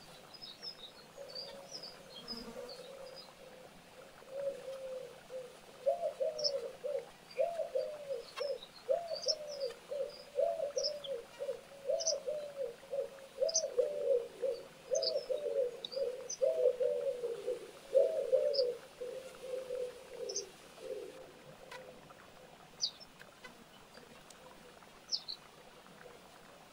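A long run of low, evenly repeated animal calls, about two a second, building up and then fading over some fifteen seconds, with scattered short high bird chirps above them.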